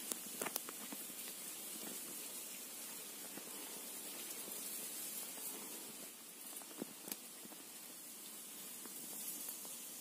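Steady background hiss with a few soft clicks and rustles, a cluster near the start and two more about seven seconds in, from pink-necked green pigeons feeding among leaves and fruit in a wire cage.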